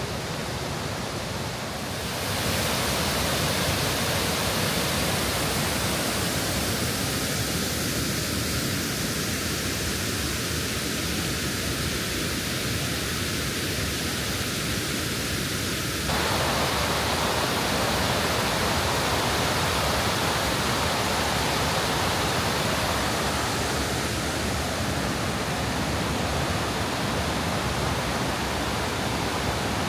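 Waterfall cascades rushing steadily over limestone terraces into turquoise pools. The rushing gets a little louder about two seconds in and again a little past halfway.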